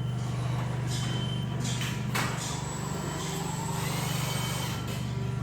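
Steady low mechanical hum of a running machine or engine, with a couple of sharp knocks around two seconds in.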